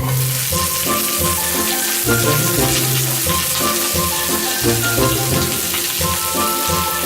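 Food sizzling and frying in a pan, a steady crackling hiss, under background music with a repeating bass line.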